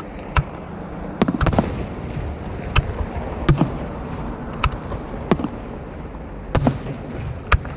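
Aerial fireworks shells bursting in a display, with about ten sharp booms, roughly one a second and a few in quick pairs, over a steady background hiss.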